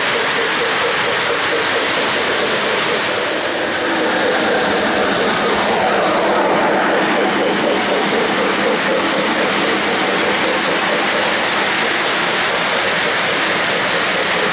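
O-gauge model freight train running at speed on three-rail track: the steady rolling rumble and clatter of the cars' wheels on the rails, with a fast, even rhythm running through it.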